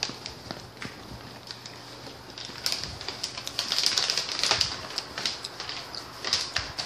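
Plastic snack bag crinkling as it is handled, a run of quick crackles that grows denser and louder about halfway through.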